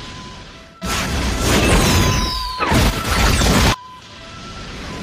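Dubbed-in fire-blast sound effect over background music: a loud rushing blast of flame in two surges lasting about three seconds, cutting off abruptly.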